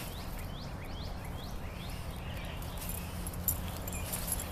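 A small bird chirping repeatedly in short, falling notes, two or three a second, over a low steady outdoor rumble, with faint crackles about three and a half seconds in.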